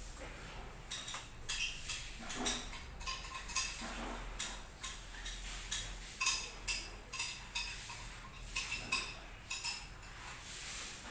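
Sumatran betet parakeet calling: a quick run of short, sharp, high notes, two or three a second, starting about a second in and thinning out near the end.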